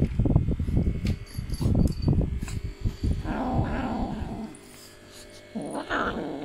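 Kitten growling in low, noisy spells while it holds and guards a feather wand toy, with scuffling and thumps in the first couple of seconds.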